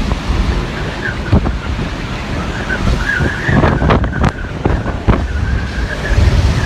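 Hurricane wind blowing hard against the microphone, with a wavering high whistle throughout and a handful of sharp knocks or cracks in the middle.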